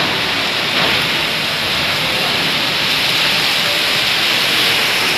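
Torrential rain pouring onto concrete rooftops and flooded ground: a loud, steady hiss of a heavy downpour.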